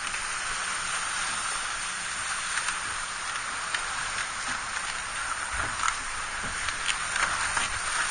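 Steady hiss of turbulent tidal water churning and fizzing around a small sailing dayboat drifting in a tide race, with scattered small ticks.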